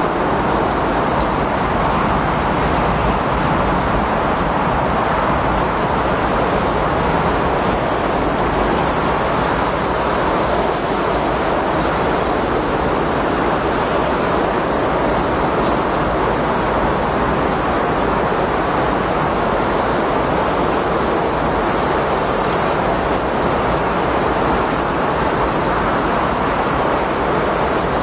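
Windstorm noise: a steady, even rush of wind with no gusts rising or falling.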